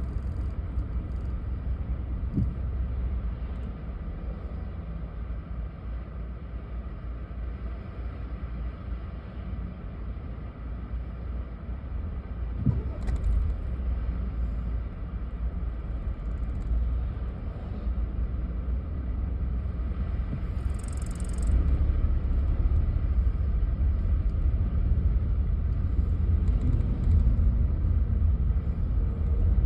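Low, steady rumble of a car's engine and road noise heard from inside the cabin in slow stop-start traffic, growing louder about two-thirds of the way through as the car gets moving.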